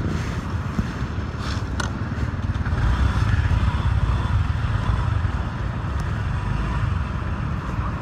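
Motor scooter riding at low speed, its small engine running under a heavy low rumble, swelling a little about three seconds in, with a couple of short clicks near the start.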